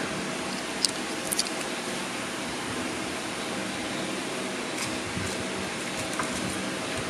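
Steady background hiss, with a few light clicks about a second in and again near five and six seconds, from hands handling a clear plastic tub.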